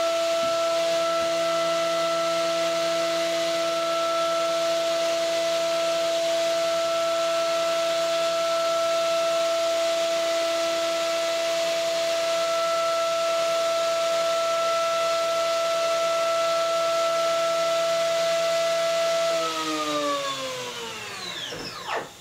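Kitamura Mycenter 3XiF's 20,000 rpm CNC spindle running at high speed: a steady high whine over a hiss. Near the end the spindle spins down, the whine gliding down in pitch and fading.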